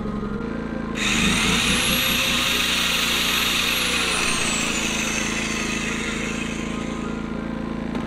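Bauer corded compact circular saw switched on and run free, with no cut: the motor comes up to speed about a second in with a high whine, holds for a couple of seconds, then winds down after the trigger is released. The Pulsar G2319N inverter generator's engine hums steadily underneath, powering the saw.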